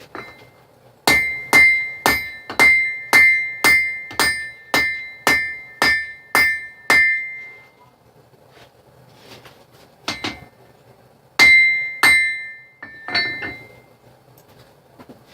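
Blacksmith's hammer striking a knife blade on an anvil: a run of about a dozen ringing blows, roughly two a second, then a pause and a few more blows near the end.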